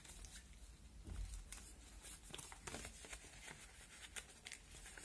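Faint rustling and small crisp clicks of a sheet of paper being folded and creased by hand, with a soft low bump about a second in.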